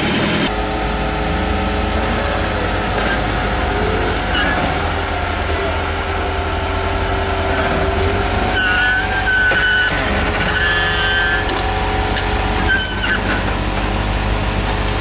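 A motor vehicle's engine running steadily, with a few short high-pitched squeals about nine and thirteen seconds in.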